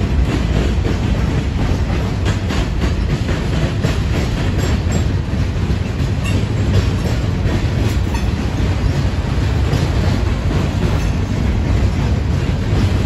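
Freight train cars rolling past: a steady rumble of steel wheels on rail, with scattered clicks of the wheels over the rail joints.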